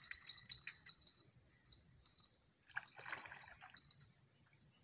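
Spinning reel being cranked with quick, fine clicking in three spells as a hooked fish is reeled in, with a splash of the fish at the surface about three seconds in.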